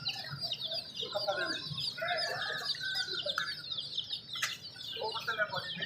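A crowd of young chicks peeping without pause, in many short, high, falling chirps. Lower clucking calls from chickens come and go under them, with a single sharp click about four and a half seconds in.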